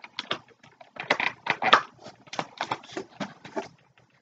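Cardboard box packaging being pulled at and torn open by hand: a quick, irregular run of rustles, crinkles and scrapes.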